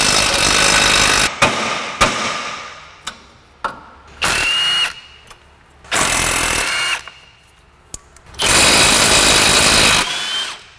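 Milwaukee cordless impact wrench hammering in four bursts, each up to about a second and a half long, undoing the front strut and knuckle bolts. The longest burst comes near the end, and a brief high whine follows two of the bursts.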